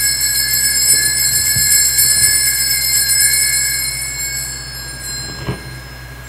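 Altar bell rung at the elevation of the chalice after the consecration, several high ringing tones fading away over about five seconds. A soft knock near the end.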